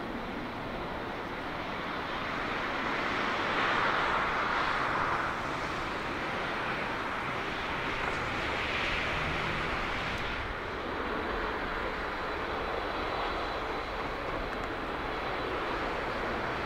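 Jet engines of a Boeing 777-200ER, Rolls-Royce Trent 892s, running with a steady rushing noise that swells a few seconds in and then holds.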